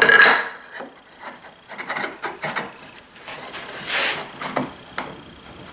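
Wooden boards knocking and scraping as an end-grain splice is pushed together over two Domino tenons: a loud wooden knock at the start, then a run of rubbing strokes with the heaviest scrape about four seconds in. The joint won't close because the mortises were cut too shallow.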